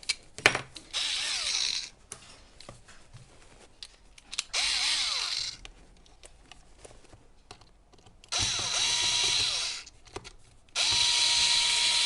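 Power screwdriver driving screws into an e-bike battery case in four short bursts, the last one longer and still running at the end, with small clicks of handling between bursts.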